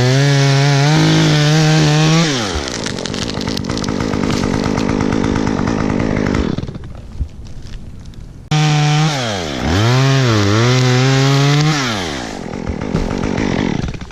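Chainsaw revved at full throttle, its pitch sagging as the chain bites into wood and cuts, then eased off. It revs up again about two-thirds of the way through, bogs down twice under load, and drops back.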